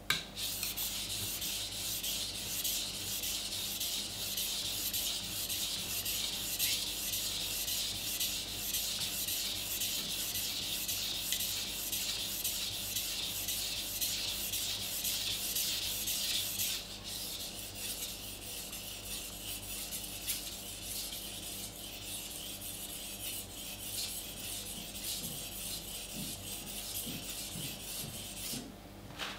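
A Global kitchen knife's steel blade being stroked back and forth on a whetstone: a steady scraping hiss of quick, even strokes. It gets a little softer about halfway through and stops shortly before the end.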